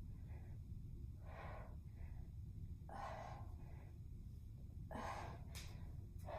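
A woman breathing hard during kettlebell lunges, short heavy breaths in and out coming every second or two in time with her reps, over a low steady hum.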